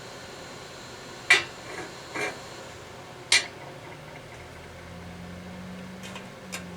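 Hard metallic knocks as the cooled, stuck lump of homemade bismuth–solder alloy is knocked and pried to test whether it will come free. Two sharp clacks about two seconds apart, a lighter one between them, and two small taps near the end. A faint low hum comes in about halfway through.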